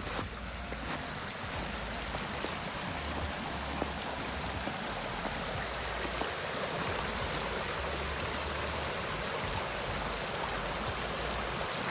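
River water flowing, a steady rushing that grows a little louder, with a few footsteps at the start.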